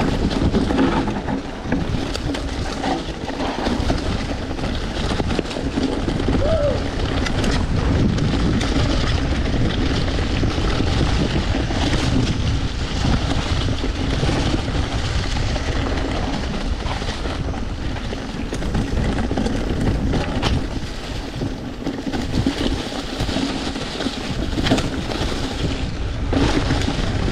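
Mountain bike riding down a dirt trail: steady tyre and rolling noise with frequent clicks and rattles from the bike over bumps, and wind buffeting the microphone.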